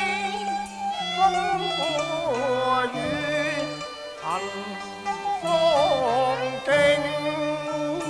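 A man singing Cantonese opera (yuequ) in phrases with gliding, wavering notes, over traditional Chinese instrumental accompaniment of held and plucked string notes.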